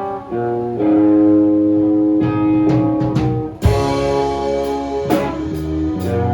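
Band music with guitar playing held notes and chords over a drum kit, with sharp drum and cymbal hits now and then.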